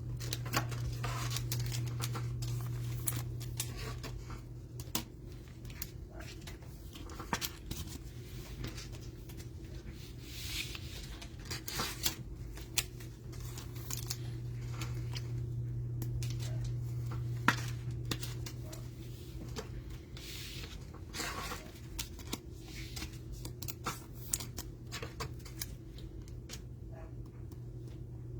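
Trading-card hanger box being torn open and its cards handled: scattered rustles, tears and light clicks of cardboard and card stock, over a steady low hum.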